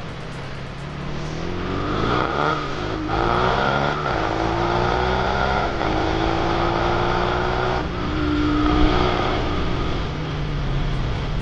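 Monkey-style bike with a 140cc YX single-cylinder four-stroke engine accelerating hard through the gears. The engine pitch climbs and drops back at each upshift, about three, four, six and eight seconds in.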